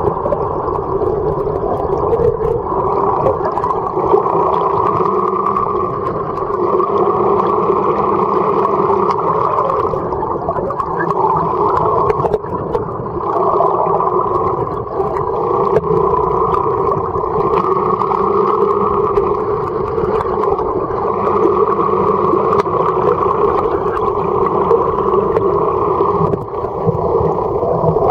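Boat engine and propeller noise heard underwater: a loud, steady drone with a constant hum.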